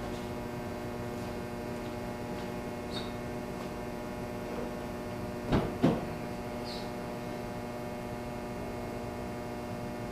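A steady electrical hum, with two knocks a little past halfway through and a few faint clicks.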